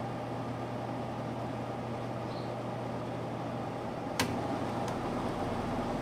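A 1997 Sanyo-built Electrolux 7500 BTU window air conditioner running with a steady low hum and the rush of its fan. About four seconds in there is a single sharp click, then a couple of faint ticks.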